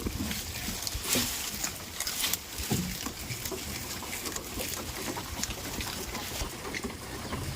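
Goats moving about: scattered clicks and rustling, with a couple of short low grunts about one and three seconds in.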